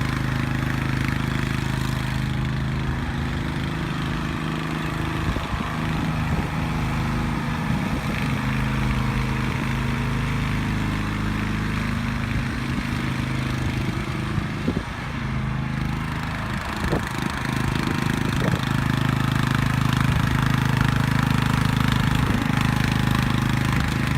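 Engine of a 2012 Dixon Speed ZTR 30 zero-turn riding mower running steadily, with a few light clicks and knocks over it.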